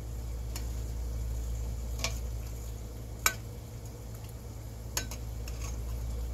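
Metal slotted spoon clinking against a stainless steel pot as pretzels are turned in boiling baking-soda water: four sharp clinks, the loudest a little over three seconds in, over a steady low hum.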